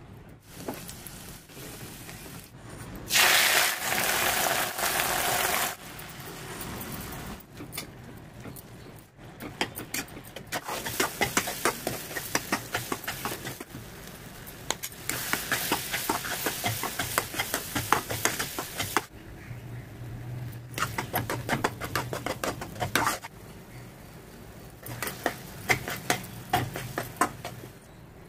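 Oil sizzling loudly for a few seconds about three seconds in, then a steel spoon repeatedly scraping and clinking against an iron kadai as a thick gongura pickle paste is stirred.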